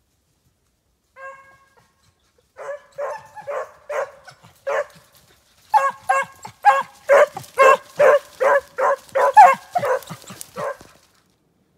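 Hunting hound barking in a long string of short, high yelps, two or three a second, louder in the second half. This steady barking is how a hound sounds while running a snowshoe hare's track.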